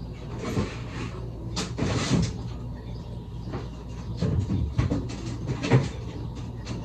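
Irregular knocks, clunks and short rustles of a refrigerator being rummaged through as fruit is taken out, with drawers and doors bumped. A steady low hum runs underneath.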